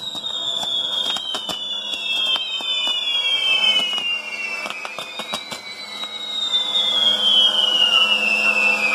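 Fireworks on a castillo, a tall pyrotechnic tower: high whistles that slide slowly down in pitch over several seconds, over a steady hiss, with scattered sharp crackling pops in the first half. The sound gets louder toward the end.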